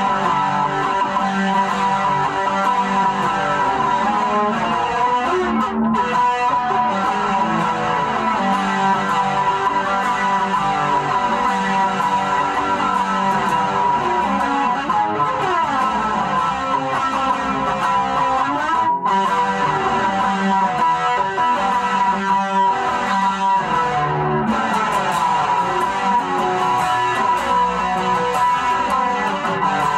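A guitar played steadily, repeating a chord riff with an even rhythm.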